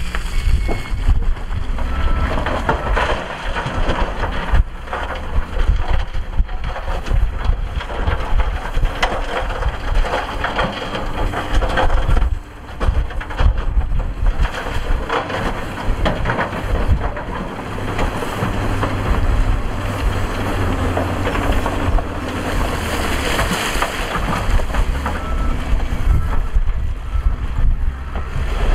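Dump truck tipping a load of broken rock: rocks clattering and rumbling as they slide out of the rising bed, over the truck's engine. Heavy wind buffets the microphone throughout.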